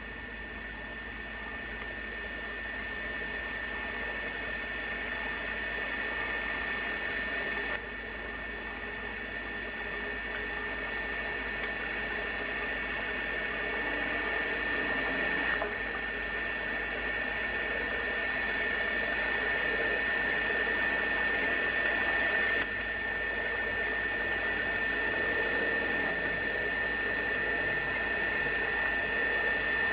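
Steady high electronic whine with hiss, a fixed tone near 2 kHz above many fainter tones. It slowly grows louder, then drops back a little in sudden steps, three times. This is typical of a camcorder's own motor and circuit noise raised by automatic gain when everything around is quiet.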